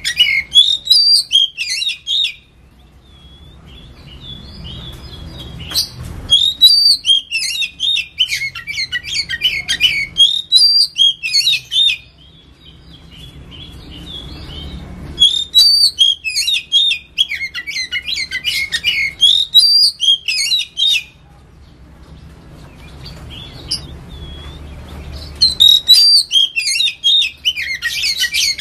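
Oriental magpie-robin (kacer) singing in the rapid, choppy 'ngetem' style: long phrases of quick, high, varied whistles and chirps, each about six seconds, with pauses of three or four seconds between them.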